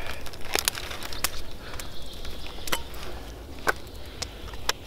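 A cloth food bag and a small camping pot being handled: soft rustling with a few scattered light clicks and knocks.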